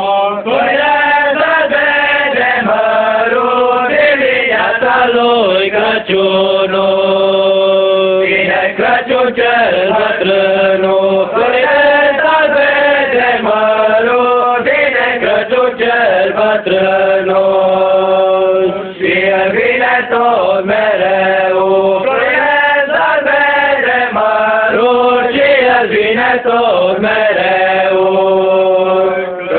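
A group of boys from a Romanian Three Kings (Crai) troupe singing a Christmas folk carol together in one melody line, loud and steady, with long held notes at the ends of phrases about every ten seconds.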